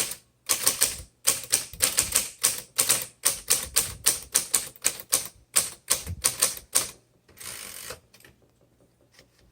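Typewriter keys striking in a quick, even run of sharp clicks, about four a second, for about seven seconds. A short rasping slide follows near the end, and then it stops.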